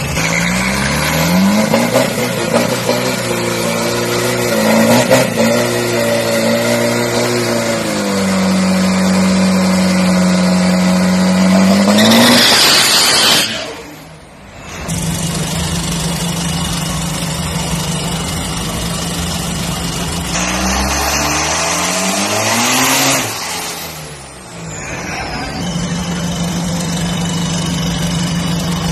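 Turbo-diesel Toyota SUV engine revving hard and holding high revs during a burnout, twice: each run ends in a loud rushing burst and then a sudden drop back to idle. A falling whistle follows the second drop.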